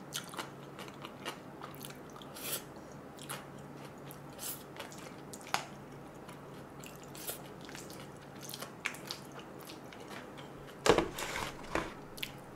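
Close-miked eating of jjajangmyeon noodles: wet chewing, smacking and small clicks of chopsticks against a plastic container. About eleven seconds in there is a louder knock and rattle, as of the plastic container being set down on the wooden tray. A faint steady hum runs underneath.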